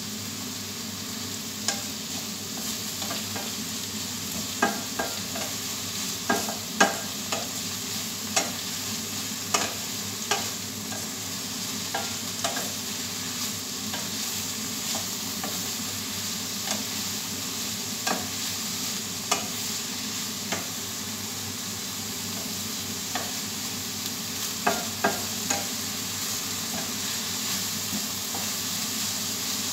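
Sliced bitter gourd (ampalaya) sizzling in a stainless steel frying pan while it is stirred with a spatula, with irregular sharp clicks of the spatula knocking against the pan over a steady frying hiss.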